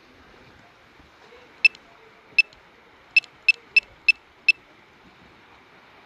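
Seven short, sharp, high-pitched clicks at uneven intervals over a faint steady hiss, bunched closer together in the second half.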